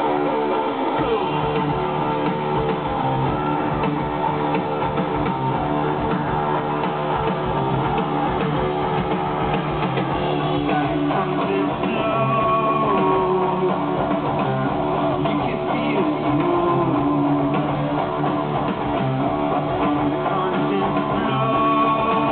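Live rock band playing at full volume, with electric guitars, bass and drums, heard from amid the audience.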